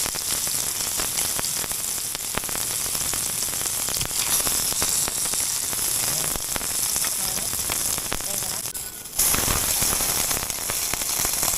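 Food frying in hot oil in a pan: a steady sizzle full of small spitting crackles. The sizzle dips briefly near the end, then comes back louder. The pan is hot enough that the food is already scorching.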